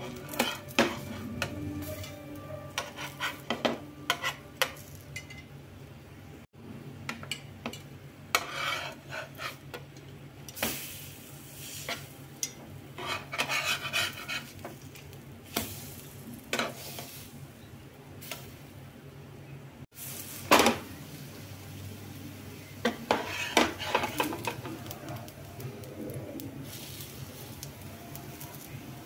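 A spatula scraping and clicking against a flat nonstick tawa while battered bread slices shallow-fry with a light sizzle, the spatula pressing and flipping them in repeated strokes.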